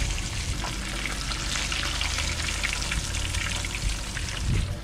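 Pompano fillets shallow-frying in hot oil in a skillet: a steady sizzle with many fine crackling spatters. The fillets are about done.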